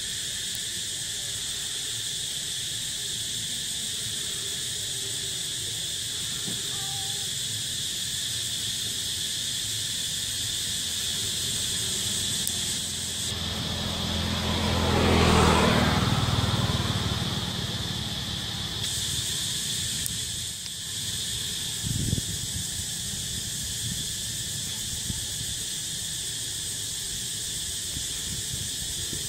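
Steady high-pitched chorus of insects buzzing. About halfway through, a louder low sound swells and fades over a few seconds, and a short knock comes a few seconds later.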